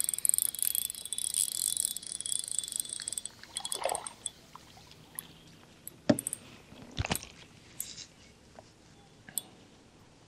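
Spinning reel being cranked fast, a steady whirr for about three and a half seconds, followed by a few scattered sharp clicks and knocks.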